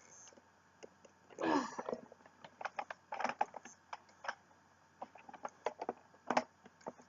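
Plastic parts of a Nerf Rival Chaos blaster's magazine being handled and fitted together: scattered light clicks, knocks and rattles, with a few sharper clicks.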